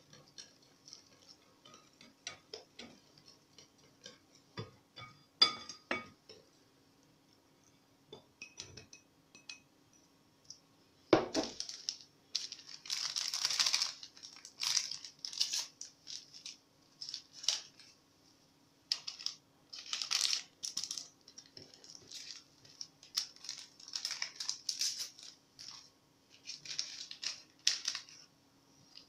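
Metal wire whisk clinking and scraping against a glass mixing bowl of chocolate cake batter topped with flour. A few light clinks come first, then one sharp knock about eleven seconds in, then a run of quick scraping strokes. A faint steady hum runs underneath.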